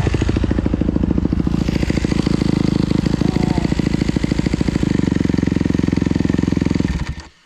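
Dirt bike engine running at a steady idle with a fast, even beat, then shut off about seven seconds in.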